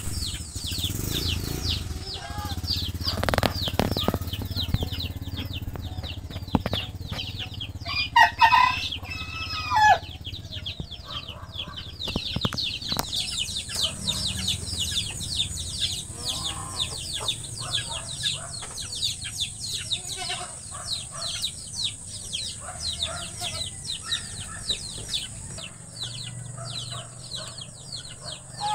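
A flock of Muscovy ducklings peeping constantly in rapid, high, falling calls. Around eight to ten seconds in, an adult bird gives a few louder, lower calls over them.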